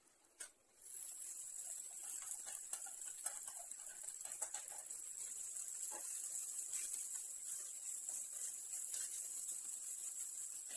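Cooked rice sizzling in oil in a frying pan, a steady high hiss that starts about a second in, with a metal spoon scraping and tapping against the pan as the rice is stirred.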